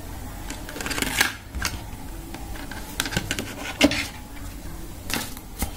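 Handling noise from a smartphone held in the hands: a handful of small, irregular clicks and taps as it is moved about and its screen is touched.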